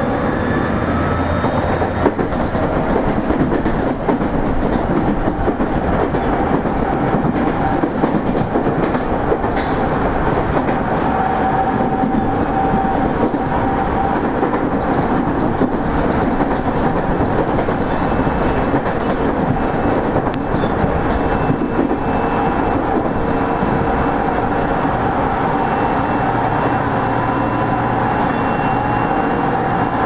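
Tobu 30000 series electric train running, heard on board: steady rail and wheel noise with clickety-clack, and a motor whine that rises in pitch near the start and then holds a steady tone.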